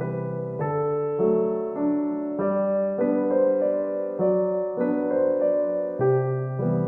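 Background music: a gentle piano or electric-piano piece with chords that change about every half second.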